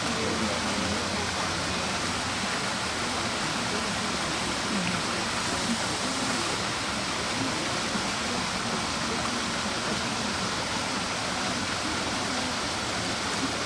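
Steady rushing noise, like running water, unchanging throughout.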